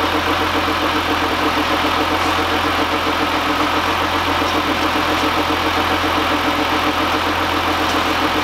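SUV engine idling steadily with a fast, even pulsing in its running note. It is the unidentified noise being diagnosed, which could come from a belt-driven pulley or from the drivetrain.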